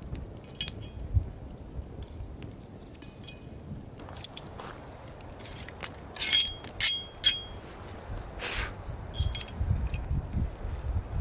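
Metal tongs clinking against a cast iron Lodge skillet lid as campfire coals are set on top of it. The clinks are sharp and scattered, with the loudest three coming close together just past the middle.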